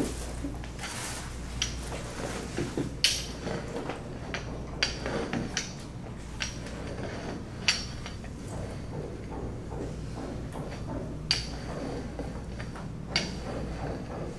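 Metal rolling pin rolling out dough on a floured wooden table, with irregular sharp knocks as the pin strikes the tabletop. A steady low hum runs underneath.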